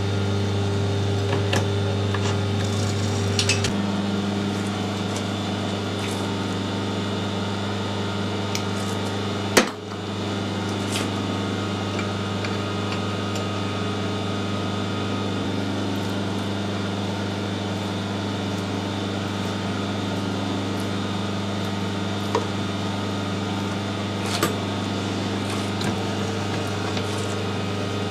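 Metal lathe running with a steady electric hum; the hum shifts in tone a few seconds in. A single sharp click comes about a third of the way through, and a few light metal ticks near the end.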